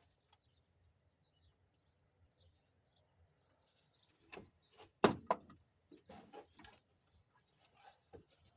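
Faint bird chirps, then sharp knocks and clicks about four and five seconds in, the second the loudest, followed by a run of lighter rattling clicks: hands and a wire being worked among parts in a pickup truck's engine bay.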